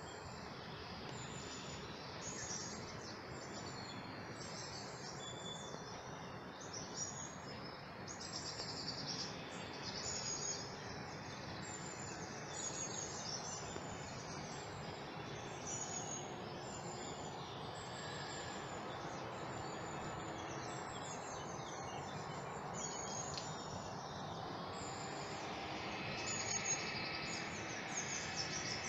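Small birds chirping over a steady outdoor background hiss: short, high, falling notes repeat every second or so, with a livelier burst of song near the end.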